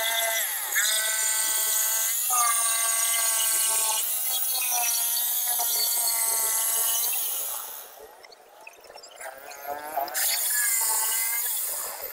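Electric jigsaw cutting particleboard: a steady high motor whine whose pitch dips and recovers a few times as the blade is loaded. It drops off about eight seconds in and runs again briefly a couple of seconds later.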